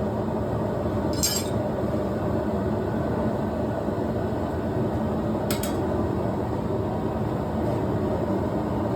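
Two light metallic clinks, one a little over a second in and a quick double clink about five and a half seconds in, over a steady rushing noise.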